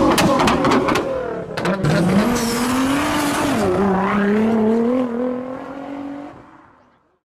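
Performance car engine revving hard, with a few sharp exhaust cracks in the first two seconds. Its pitch climbs, dips and climbs again, then the sound fades out near the end.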